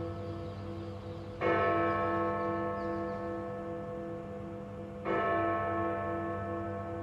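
Big Ben, the Great Bell of Westminster, striking eleven o'clock: two strokes about three and a half seconds apart, each ringing on with a slow pulsing hum and fading before the next.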